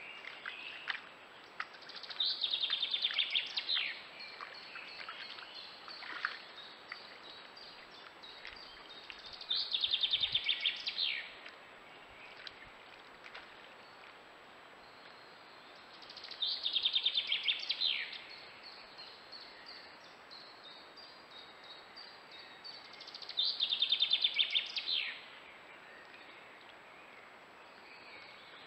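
A songbird singing the same short, rapid trilled phrase four times, about every seven seconds, each phrase ending in a quick downward sweep, over a steady faint hiss. A few faint splashes near the start as a roe deer wades in the shallow stream.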